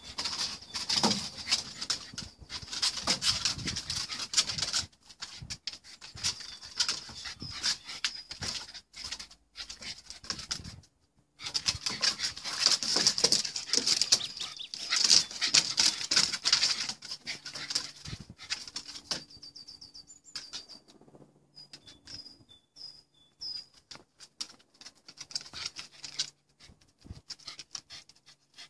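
Two dogs, a Basenji puppy and a small terrier, play-fighting on a wooden deck: rapid scrabbling and pattering of claws and paws on the boards, coming in two busy stretches with quieter shuffling between and after.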